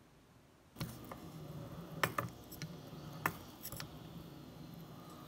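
Metal clicks and clunks from a partly disassembled small engine being turned over by hand, its piston moving up and down in the cylinder. It starts about a second in, with the sharpest clicks about two and three seconds in.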